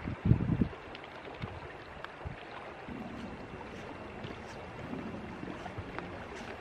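Wind buffeting the microphone for the first half-second or so, then a steady rush of flowing river water over rocks, with a few faint clicks.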